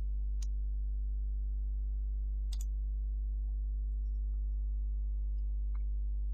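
Steady low electrical mains hum with a few sharp computer-mouse clicks: one about half a second in, a quick double click about two and a half seconds in, and a fainter click near the end.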